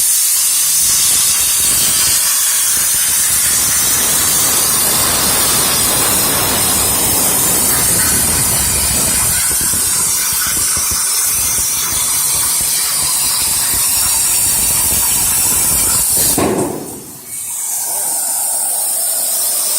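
CNC plasma cutter's arc cutting metal: a loud, steady hiss that starts suddenly, breaks off about sixteen seconds in, and starts again a second later.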